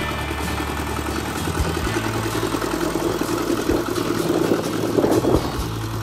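Kubota walking tractor's single-cylinder diesel engine running under load while ploughing, growing louder and rougher about four to five seconds in.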